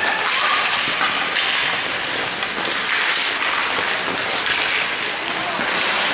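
Ice hockey play heard in the rink: a steady hiss of skate blades scraping the ice, with an occasional faint clatter.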